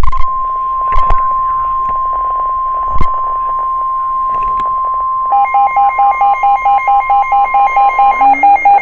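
A NOAA Weather Radio's warning alarm tone sounding as one steady, unbroken pitch, with a few sharp knocks at the start, about a second in and about three seconds in. About five seconds in, a second, lower alert tone starts beeping about three times a second, and it carries on after the steady tone cuts off near the end.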